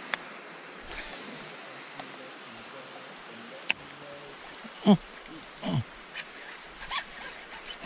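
Steady high-pitched buzz of rainforest insects, with a sharp click in the middle. From about five seconds in come several short cries that fall in pitch, the loudest sounds.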